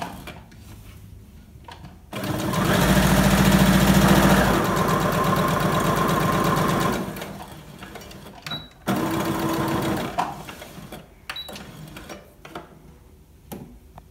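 Electric household sewing machine stitching through two layers of cotton fabric, running a seam to the end. One long run of stitching starts about two seconds in and eases off after a few seconds. A short second burst of stitching follows, with small clicks between.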